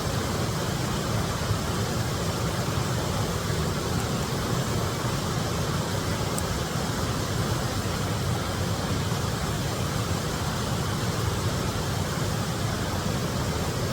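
Steady roar of rushing water, a waterfall or fast stream close by, even and unbroken throughout.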